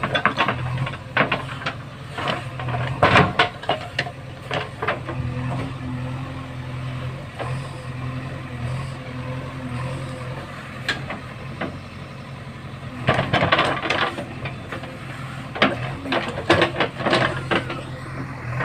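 Backhoe loader's diesel engine running steadily, with bursts of sharp metallic knocks and clanks from the working digger near the start and again about two-thirds of the way in.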